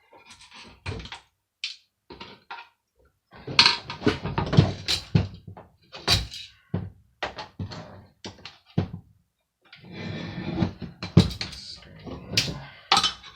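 Irregular knocks, clatter and scraping as hand tools work on a hand air dryer's metal and plastic parts during dismantling, busiest from about three to seven seconds in and again from about ten seconds to the end.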